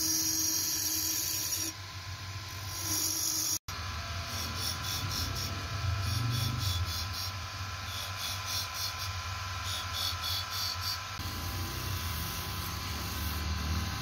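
Belt-driven wood lathe running with a steady hum while a long hand-held chisel shaves the spinning wooden blank, giving a hissing scrape. There is a sudden break about four seconds in, after which the cutting comes as fast pulsing scrapes at intervals over the hum.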